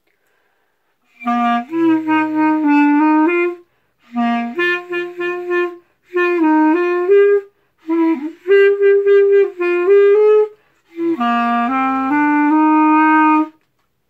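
Clarinet playing a simple melody in five short phrases with brief pauses between them, the notes stepping up and down.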